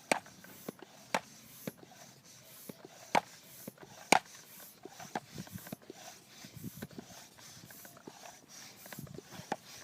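Hand air pump being worked to pressurize a compressed-air confetti cannon's chamber toward about 60 psi, with sharp clicks and knocks at irregular intervals.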